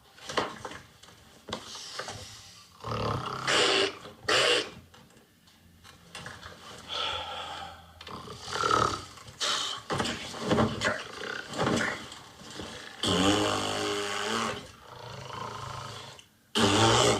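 An elderly woman's loud, exaggerated snoring: a string of separate rasping snores and snorts a second or two apart, one long pitched snore about thirteen seconds in and a sharp, loud one at the very end.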